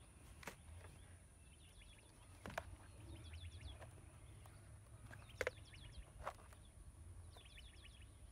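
Faint bird chirping in short runs of quick high notes, several times over. A few sharp light clicks and taps sound from the handling of the plastic panel and zip ties, the loudest about five seconds in.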